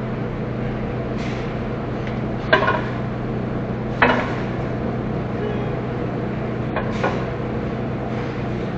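Steady low hum of running screen-printing shop machinery, broken by three sharp clacks, the loudest about four seconds in.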